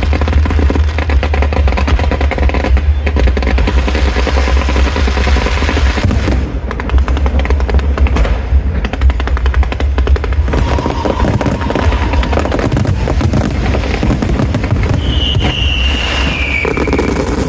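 Fireworks and firecrackers going off in a dense, continuous run of rapid cracks and bangs, like machine-gun fire. Near the end, a high whistle glides downward.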